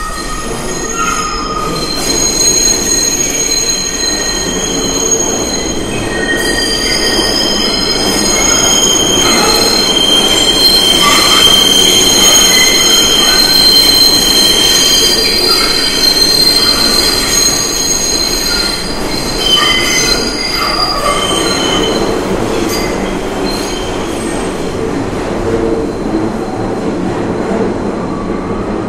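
New York City subway train's wheels squealing against the rails as it brakes: several high, steady squeal tones that come and go and change pitch over a rumble of the running cars, loudest midway through.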